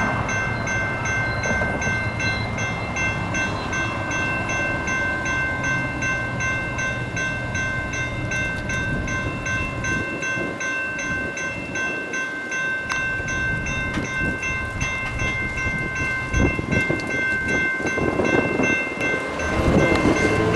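General Signals Type 2 electronic crossing bell ringing steadily, a rapid, evenly repeated ding, while the crossing is active and its gates are down. Near the end, a deeper rumble builds underneath as the light rail train draws near.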